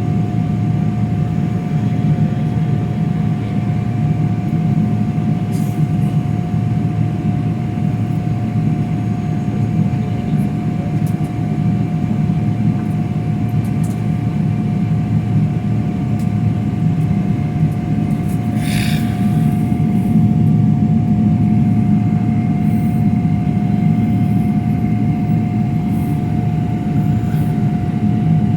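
Steady airliner cabin noise: a low rumble with a constant whine running through it, and a brief higher-pitched sound about two-thirds of the way through.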